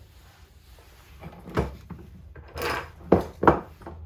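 Hand tools being handled on a workbench: a few separate knocks and clatters with a short scrape between them, the two sharpest knocks close together near the end.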